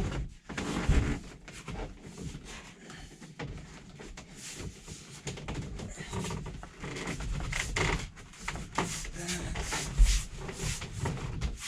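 Rubbing and rustling of an upholstered bed trim piece being worked around and pressed into place by hand, with scattered light knocks and one sharper thump about ten seconds in.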